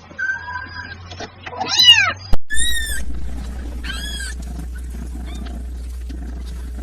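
Kittens meowing: one meow about two seconds in, then two short, high-pitched mews about a second and a half apart, followed by a steady low hum.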